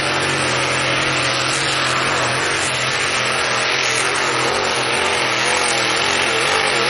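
Pulling tractor's racing engine running flat out under load as it drags the weight-transfer sled down the track, a loud, steady blare that holds at one pitch.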